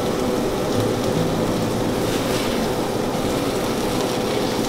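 Steady whir and hiss of a fan with a constant humming tone, running evenly without breaks.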